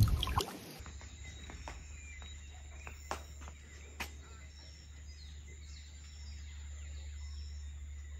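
Evening outdoor ambience: faint, short high-pitched chirps of night creatures repeat over a low steady rumble. There is a brief louder noise at the very start and a couple of sharp clicks about three and four seconds in.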